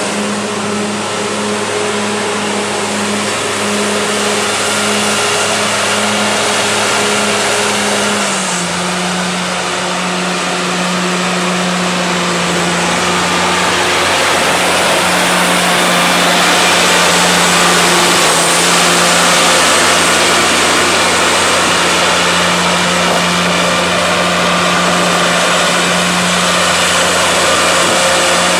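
Cummins LT10 six-cylinder diesel engine of a 1993 Ford Versatile 846 four-wheel-drive tractor running steadily. About a third of the way through, its pitch drops a little and then holds, and it grows slightly louder in the second half.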